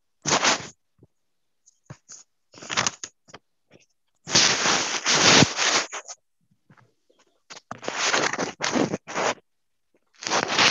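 Scraping, crackling noise over a video-call connection, coming in irregular bursts of about half a second to nearly two seconds, with dead silence between them.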